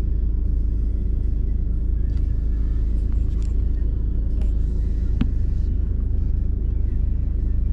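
Steady low rumble of a car driving, heard inside the cabin, with a single short click about five seconds in.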